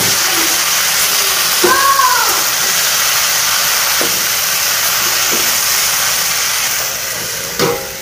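Red amaranth leaves (lal saag) sizzling in oil in a hot metal kadai, with light spatula knocks against the pan. Near the end a steel lid clinks down onto the kadai and the sizzle becomes quieter and muffled. About two seconds in, a short high cry rises and falls.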